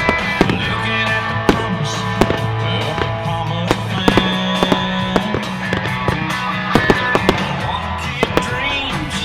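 Consumer fireworks going off in a show: repeated sharp bangs and crackles at irregular intervals, over loud music playing throughout.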